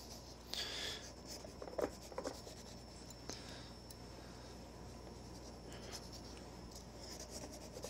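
A small carving knife scraping and cutting into a cantaloupe's rind and flesh: faint scratchy strokes, with a few light clicks about two seconds in.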